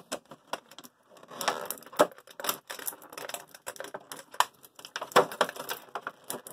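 Clear plastic toy packaging being handled and pulled out, crinkling and crackling in a fast, irregular run of sharp snaps.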